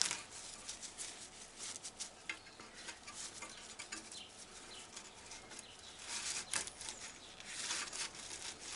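Faint rustling and crackling of a tobacco leaf being pulled through a stem removal tool to strip out the stem, louder about six seconds in and again near the end.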